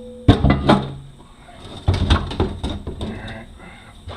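Metal automatic-transmission parts clanking and clattering as they are handled and set down: two sharp knocks near the start, then a run of lighter clicks and knocks a couple of seconds in.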